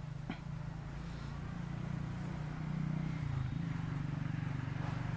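Steady low hum of an engine running, its pitch shifting slightly about three seconds in, with a single sharp click just after the start.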